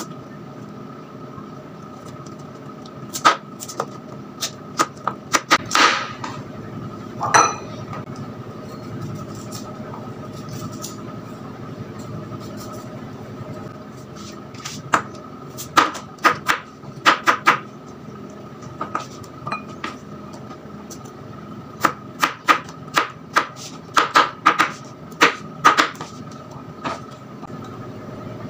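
Kitchen knife chopping carrot and potato on a plastic cutting board: runs of sharp taps, several quick cuts at a time, in three bouts with pauses between. A steady hum runs underneath.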